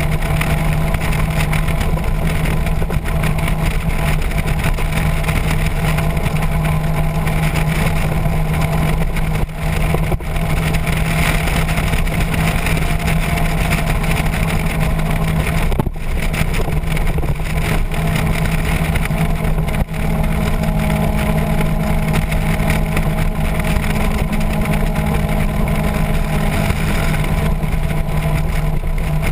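Motorcycle engine running at a steady, unchanging pitch while riding at a constant speed, under a steady rush of wind and road noise.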